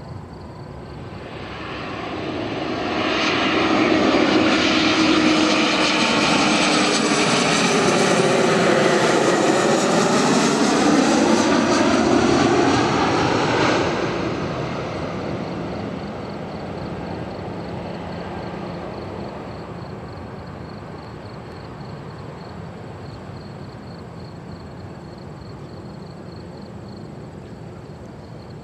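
Embraer E-190 jet airliner passing low overhead on final approach: its engine noise swells to a loud steady rush with tones that sweep down and back up as it passes. About halfway through it drops suddenly to a fainter, more distant jet rumble.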